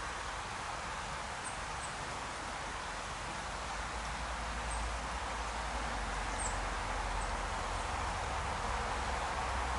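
Steady rushing of a small stream's water, with a few faint high-pitched chirps over it.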